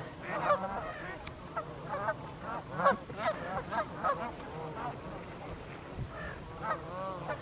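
A flock of Canada geese honking, many short calls overlapping, busiest in the first few seconds and thinning out later.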